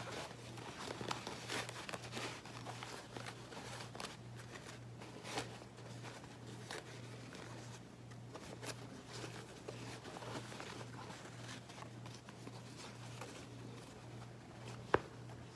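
Hands rustling and crumpling a sewn duck canvas and broadcloth mask as it is turned inside out, with one sharp click near the end over a steady low hum.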